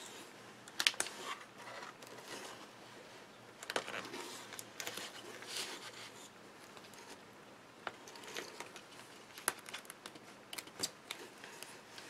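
Faint scattered rustles, crinkles and small clicks of card stock and clear acetate being handled as thin adhesive tape is peeled and pressed around a shaker card's window.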